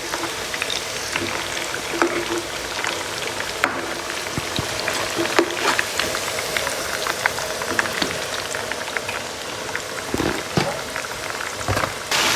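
Tomato paste frying: a steady sizzle with many small crackling pops, turning louder and steadier just before the end.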